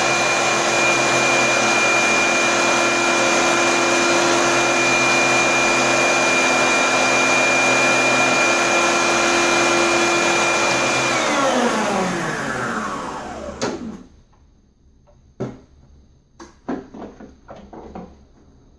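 Walita food processor chopping parsley, its motor running at a steady whine. About eleven seconds in it is switched off and winds down in a falling whine. A few plastic knocks and clatters follow as the lid is taken off the bowl.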